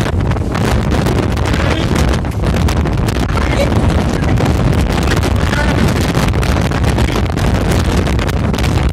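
Strong dust-storm wind buffeting the phone's microphone, a loud, steady rushing noise.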